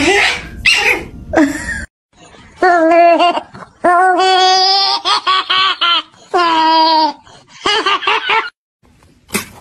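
A person laughing in several drawn-out, high-pitched squeals.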